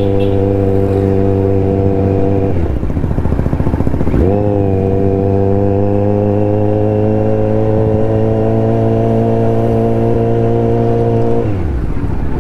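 Kawasaki Z900's inline-four engine running under way with a steady note. The note falls away about two and a half seconds in, picks up again with a quick rise about four seconds in, climbs slowly, then falls away again near the end.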